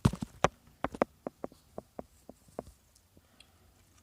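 Trading cards being handled and set down on a pile: a quick run of sharp clicks and taps, loudest at the start, then thinning out to a few a second before stopping.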